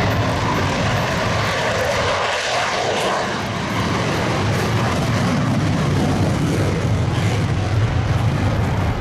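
F-35C fighter's single F135 afterburning turbofan heard in flight, a steady rushing jet noise with a deep rumble. The rumble fades briefly about three seconds in and then returns.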